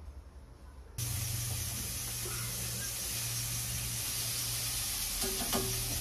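Food sizzling on a hot grill plate, a steady hiss that starts abruptly about a second in, with a steady low hum beneath it.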